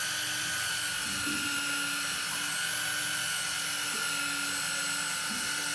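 Electric fishing reel's motor whining steadily as it winds in line against the pull of a heavy fish on a deeply bent rod.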